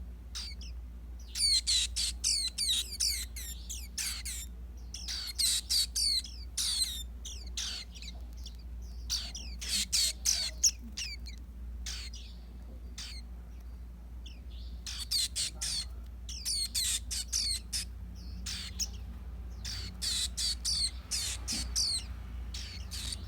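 Young Taiwan white-eye (pleci) twittering in quick, high chirps. The chirps come in bursts of a second or two, several times over, with short pauses between. A steady low hum lies underneath.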